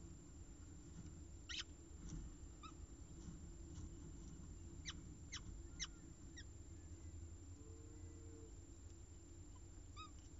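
Peregrine falcon chick giving short, faint begging peeps while being fed, about half a dozen scattered through, with a few sharp clicks among them, over a low steady hum.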